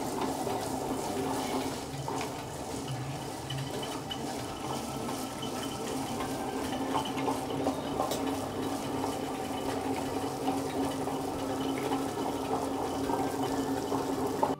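Table-top wet grinder running steadily: its motor hums as the stone rollers churn soaked urad dal into a thick, wet batter.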